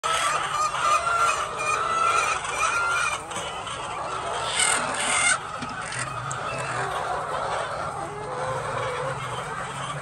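A flock of white laying hens clucking and calling, with short pitched calls densest in the first three seconds. A brief, louder noise comes about five seconds in.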